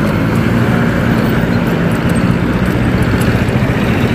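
Road traffic noise from cars passing close by, under a steady low rumble of wind on the microphone of a moving scooter.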